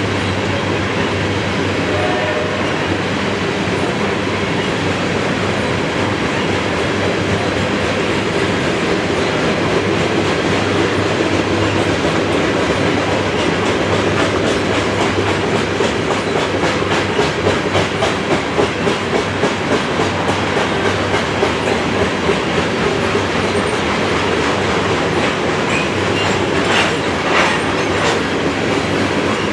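Freight train of grain hopper cars rolling past at close range, with steady wheel and rail noise and a rhythmic clickety-clack of wheelsets passing over the rails in the second half. A couple of sharp clanks near the end.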